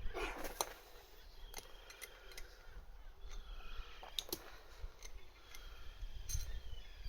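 Scattered light metallic clicks and clinks of hand tools being handled, a few strikes spread unevenly with quiet between.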